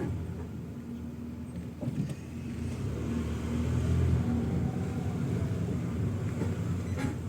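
Nissan Note E12 on the move: a steady low rumble of road and running noise that swells and eases. A faint tone rises and falls about three to five seconds in.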